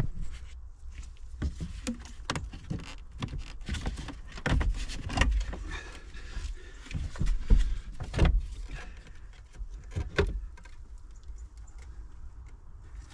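Irregular clicks, knocks and light thumps of plastic dashboard trim as the MG ZS's radio head unit is tugged and worked in its housing.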